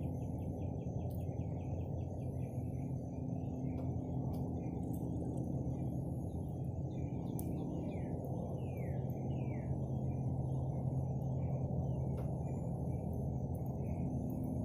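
Steady low hum and rumble of outdoor ambience, with faint bird chirps and a few falling calls over it, a short rapid trill near the start, and three or four faint clicks.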